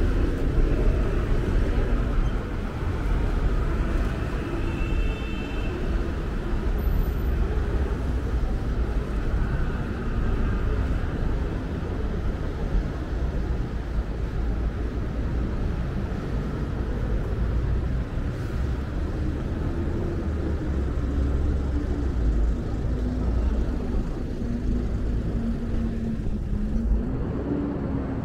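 City street ambience: a steady rumble of road traffic with cars passing.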